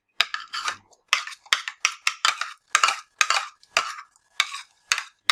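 A spoon stirring and beating thick shampoo-and-shower-gel slime against the side of its container, in quick strokes about three to four a second. The mixture is thickening into slime as salt is worked in.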